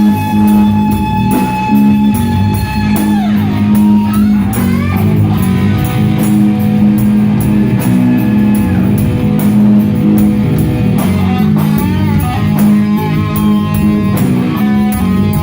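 Rock band playing live: guitar holding long notes that bend and slide in pitch, over bass and a drum kit keeping a steady beat.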